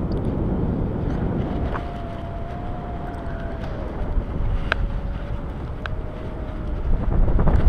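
Airflow buffeting the microphone of a camera worn in paraglider flight, a steady low rumble, with a faint thin steady tone through the middle and a few light clicks.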